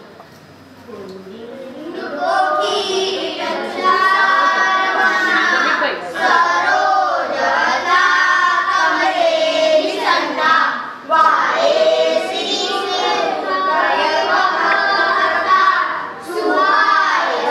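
A group of children singing a devotional prayer together, unaccompanied; the singing starts about two seconds in.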